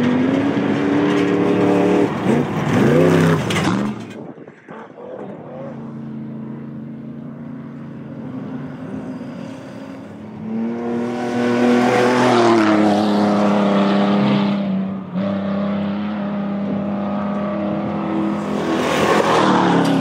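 Off-road desert race vehicles' engines running hard as they pass, pitch rising and falling with revving. The sound drops abruptly about four seconds in and again about fifteen seconds in, and it is loudest around twelve seconds and near the end.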